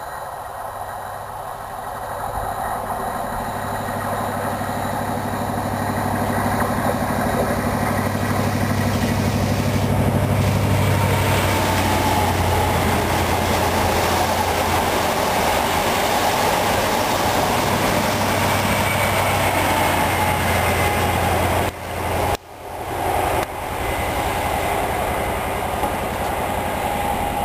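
CrossCountry InterCity 125 (HST) diesel train approaching and passing close at speed: a growing low engine drone with a high whine that sinks slightly in pitch as it goes by, and rolling wheel and rail noise from the coaches. About three-quarters through, the sound breaks off briefly and resumes as a more distant train.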